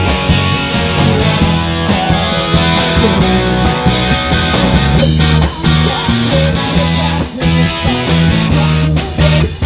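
Live rock band playing: electric guitar, electric bass and drum kit, with a male lead vocal. The band stops short for brief breaks a few times in the second half.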